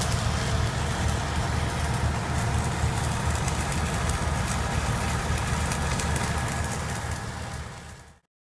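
Heavy machine engine idling steadily with a low, pulsing rumble, fading out and cutting off near the end.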